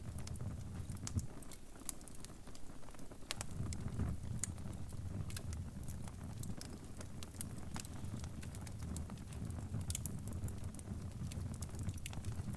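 Fire crackling: a low steady rumble of flames with irregular sharp pops and snaps.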